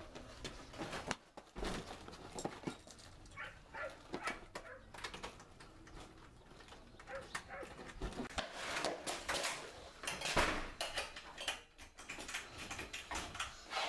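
Knocking and banging on a wooden door, a string of short knocks with louder bursts about eight to eleven seconds in.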